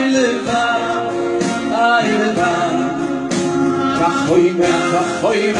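A man singing into a handheld microphone, with long held notes and slides between pitches.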